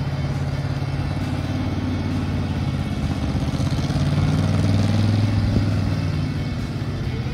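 GAZ 66 truck's engine labouring as the truck crawls over rough ground. It revs up and grows louder about four seconds in, then eases off again near the end.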